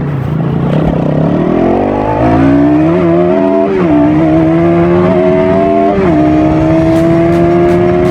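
Bajaj Pulsar NS200 single-cylinder engine through its stock exhaust, revved up over about two seconds and then held at high revs with brief small dips.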